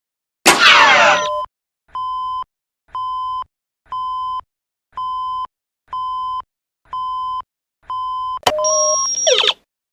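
Electronic sci-fi sound effects, the kind made for the DeLorean time machine: a short descending electronic sweep, then seven steady single-pitch beeps about one a second, then a sharp click and a warbling electronic burst near the end.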